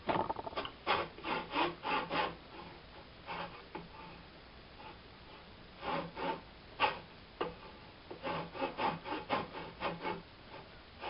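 An old hand backsaw cutting a shallow relief line across a hardwood cane blank. It goes in short back-and-forth strokes, in several bouts with brief pauses between them. The cut is shallow and made without force, as a guide for the carving.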